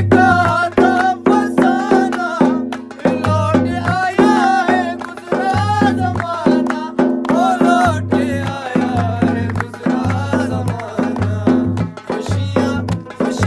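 A song: a solo voice singing over a steady percussion beat and repeating bass notes. The singing is strongest through the first half and thins out after about seven seconds, leaving mostly the beat.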